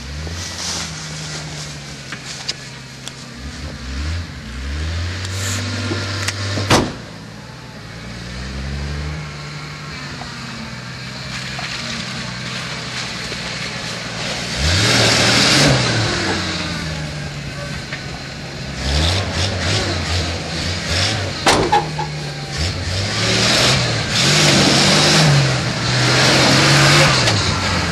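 Ford Bronco engine revving up and dropping back again and again as the truck churns through mud and tall grass. Several stretches of spinning-tire and mud-spray hiss ride over the engine, and there are two sharp knocks, about a quarter of the way in and again past two-thirds.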